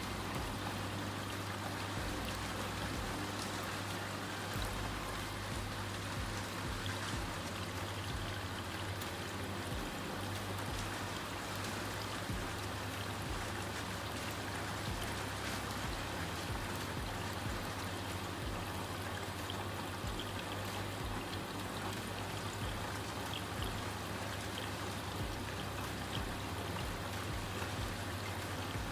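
Water running steadily inside a Vestel washing machine mid-cycle, with a constant low hum from the machine.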